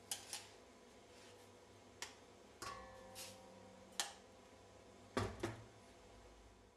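Faint sharp clinks and taps of a spoon and containers as salt and sugar are measured into a stainless steel mixing bowl, about eight scattered ticks; one, about two and a half seconds in, leaves a brief ringing tone.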